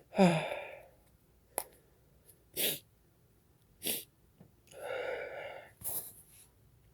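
A person sneezing once, loudly, with a falling voice, set off by sniffed sneezing powder. Several short sharp sniffs and a drawn-out voiced breath follow, then one more short sniff near the end.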